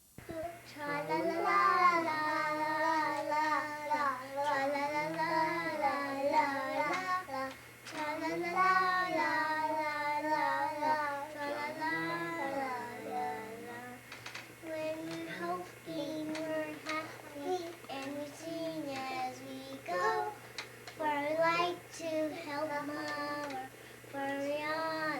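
A young child singing a song. The phrases run almost without a break for about the first half, then come shorter and with gaps between them.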